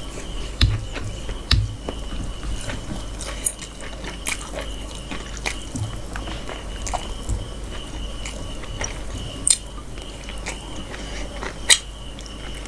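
A person eating mutton curry and rice: wet chewing with sticky mouth and lip smacks and sharp clicks now and then, the loudest about half a second and a second and a half in, and again about a second before the end. A steady high-pitched tone runs underneath.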